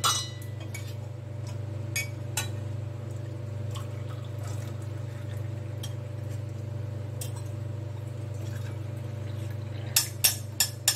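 Tea being poured from a steel saucepan through a tea strainer into a glass cup and a steel tumbler, with a run of sharp metal clinks near the end as the strainer and pan knock against the cups. A steady low hum from a running water pump lies underneath.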